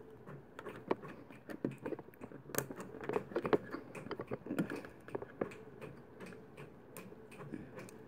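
Small Lego plastic pieces being handled and pressed onto Technic beams: a quiet run of irregular little clicks and taps.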